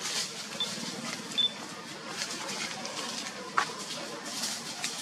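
Outdoor forest ambience: soft crackling and rustling throughout, with two brief high chirps early and one sharp, falling squeak about three and a half seconds in.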